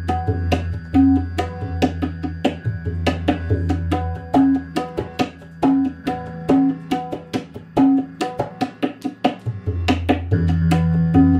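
Background music: quick drum hits over held low notes.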